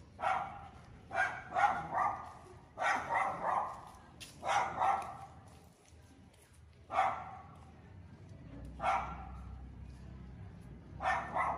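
A dog barking repeatedly, about a dozen short barks in irregular clusters with pauses of a second or two between them.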